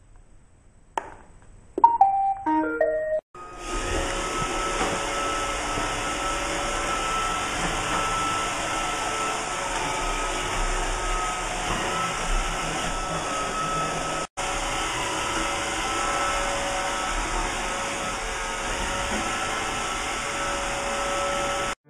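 iRobot Roomba robot vacuum: a button click, then a short tune of electronic beeps as it starts its cleaning cycle, then its vacuum motor and brushes running steadily with a faint whine.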